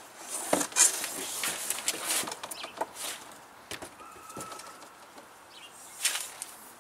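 Handling noise as an aluminium-framed solar panel is slid out of its cardboard shipping box and lifted: scrapes, rustles and knocks of cardboard and frame, with a brief squeak about four seconds in.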